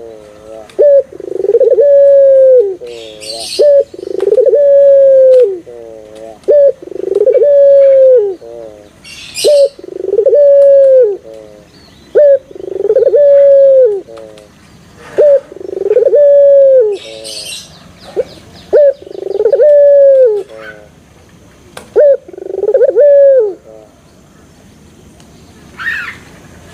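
A three-month-old Barbary dove (puter) cooing over and over. Each call is a short note followed by a drawn-out coo of about a second, repeated roughly every two seconds, until the cooing stops about 23 seconds in.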